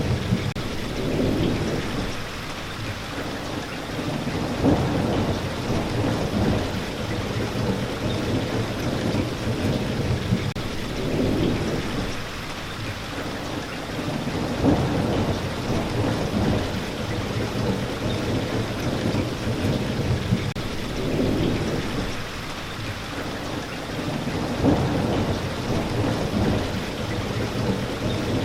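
Steady heavy rain hissing, with low rolls of thunder swelling and fading every few seconds and a sharper crack of thunder now and then.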